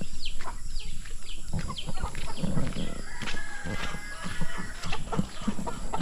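Chickens clucking, a steady run of many short calls.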